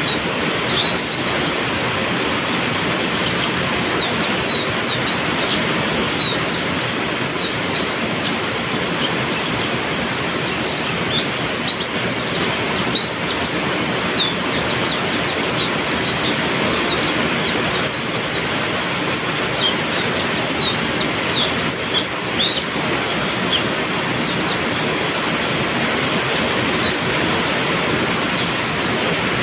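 Heavy rain falls steadily while white-eyes (pleci) sing over it. Their many short, high, quick sliding notes come in dense runs.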